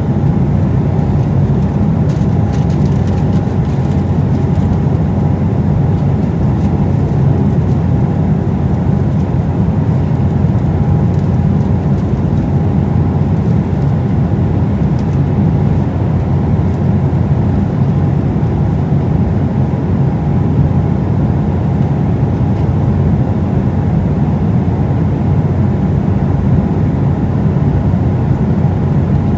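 Steady cabin noise of an Embraer E190 jet in flight: an even rumble of its two GE CF34 turbofans and the airflow, with a faint steady whine.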